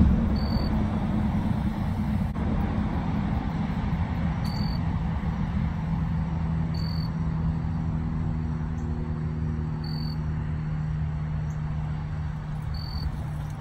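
A steady low mechanical drone with rumble underneath, like a distant engine, holding one low tone, and a short high chirp about every two to three seconds.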